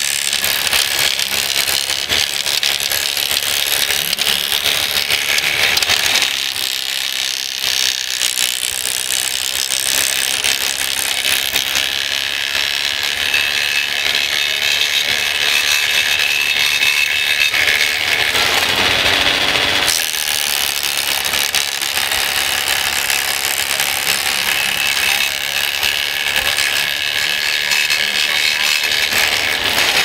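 Working RC model wood chipper running with a steady high whine and grinding while the truck's crane grapple feeds branches into it.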